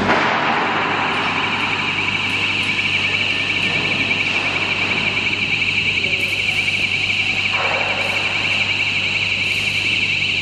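Warning alarm on a battery-powered rail flat transfer cart sounding a steady, high-pitched rapid warble while the cart travels, over a low steady hum.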